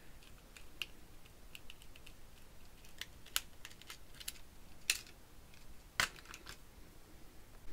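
Scattered light clicks and taps of hard plastic as a TrackMaster toy engine's battery cover is fitted and fastened with a small screwdriver, then a louder click about six seconds in as the engine is set down on plastic track.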